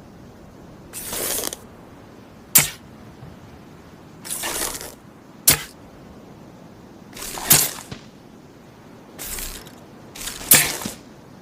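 Compound bow and arrow sounds repeated four times: each a short hissing swell followed about a second later by a sharp snap.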